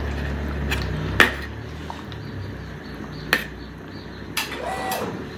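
A metal ladle knocks sharply against a large steel wok and basin about four times as cooked chicken pieces are lifted out of the curry. The loudest knock comes about a second in. A low steady hum runs underneath for the first couple of seconds.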